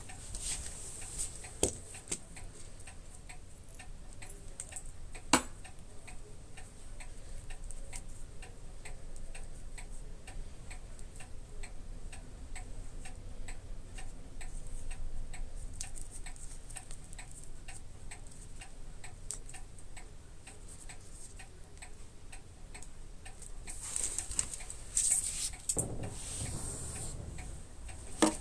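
Steady, rapid mechanical ticking, about three ticks a second, with one sharp knock about five seconds in and some rustling near the end.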